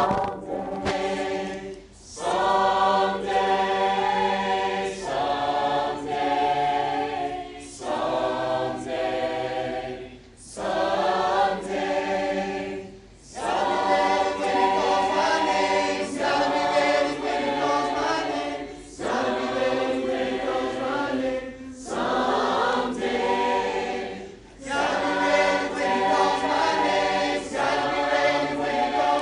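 A group of voices singing a worship song together a cappella in harmony, in sung lines separated by short breaths.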